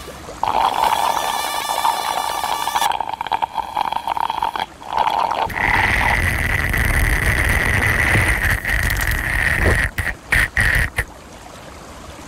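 Cartoon insect wing buzzing: a steady mid-pitched buzz for about five seconds, then a dragonfly's wings whirring as a higher buzz over a low motor-like rumble. The whirr breaks up and stops about eleven seconds in.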